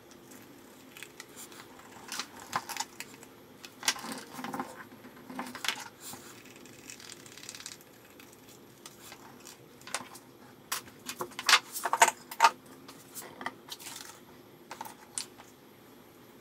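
Small hard objects, metal among them, clinking and tapping irregularly as they are handled, with a cluster of louder clicks past the middle and a short rustle before it.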